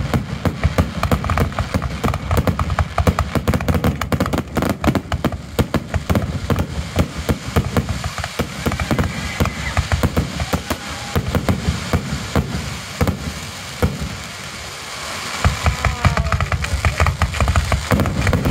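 Fireworks finale barrage: aerial shells launching and bursting in rapid, overlapping bangs. There is a short lull near the end before the bangs resume.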